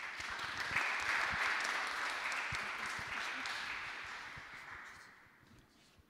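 Audience applauding, a dense patter of many hands clapping that peaks early and fades away near the end.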